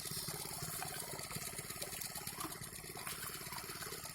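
Engine-driven water pump running steadily, with water gushing and splashing as the canal is pumped out.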